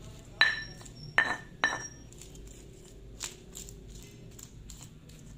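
Stone pestle knocking and grinding against a stone mortar while crushing chilies and garlic: three sharp ringing knocks within the first two seconds, then lighter taps.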